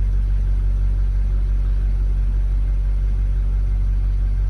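The 2022 BMW M5's twin-turbo V8 idling with a steady low rumble.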